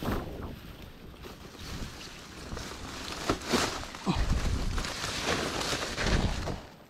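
Rustling and irregular low thumps from someone moving through forest undergrowth, with wind buffeting the microphone.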